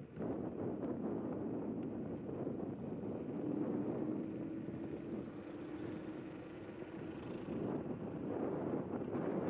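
Wind rushing over the microphone and riding noise from a Zero 10x electric scooter in motion on a paved path, with a faint steady hum for a few seconds in the middle.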